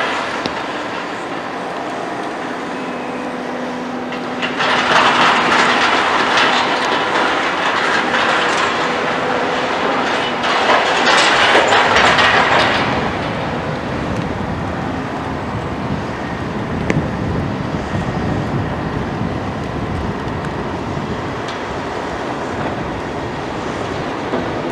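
Heavy demolition excavator at work: its diesel engine runs steadily under a constant clatter of demolition debris. The debris grows loud in two stretches, about five seconds in and again around eleven to thirteen seconds in.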